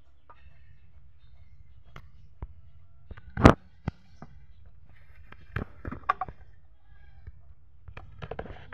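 Sharp knocks and light clatter of kitchen bowls and utensils being handled, the loudest a single hard knock about three and a half seconds in, over a steady low hum.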